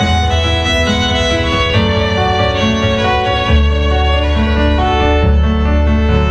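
Electric violin played with a bow: a melody of long held notes, over a recorded accompaniment with a low bass line that changes note about halfway through.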